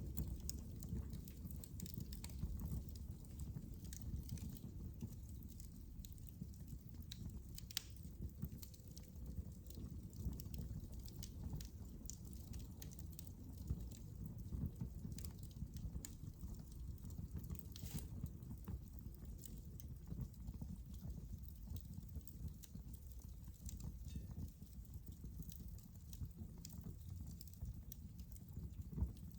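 Wood fire crackling in a fireplace: a steady low rumble of the flames with irregular sharp pops and snaps.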